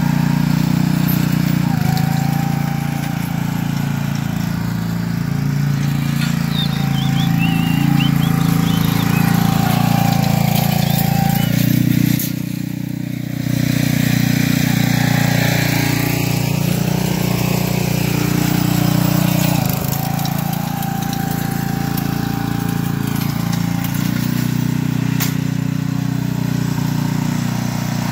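Small single-cylinder gas engine of a walk-behind core aerator running steadily under load as the machine is pushed across a lawn, briefly quieter about twelve seconds in.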